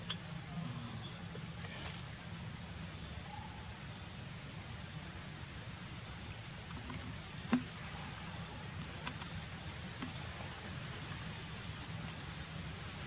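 Outdoor background noise with a steady low hum, through which faint, short, high chirps, each falling slightly, repeat about once a second. A few sharp clicks stand out, the loudest about halfway through.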